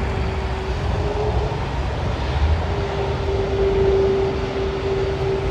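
Jet airliner engines running: a steady rumble and hiss with a humming tone that swells for a couple of seconds past the middle.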